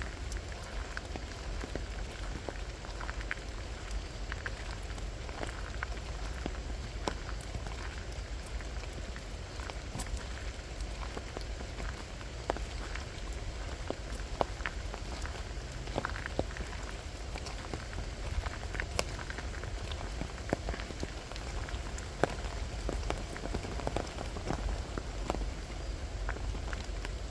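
Steady rain falling, with many scattered drops ticking irregularly throughout.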